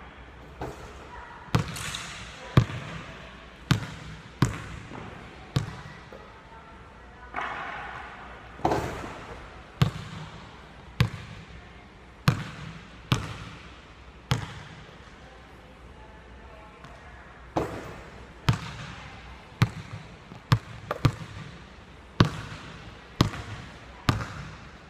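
Basketball bouncing on a hardwood gym floor, sharp thuds that ring in the large hall, coming in runs of dribbles with a pause of about three seconds past the middle.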